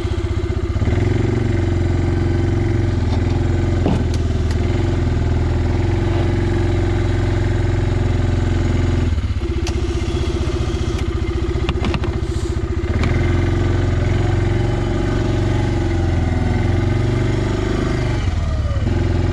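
Suzuki King Quad 400 ATV's single-cylinder engine running under load as the quad pushes a plow blade through snow. The engine note rises and falls with the throttle a few times, about a second in, around nine and thirteen seconds, and again near the end.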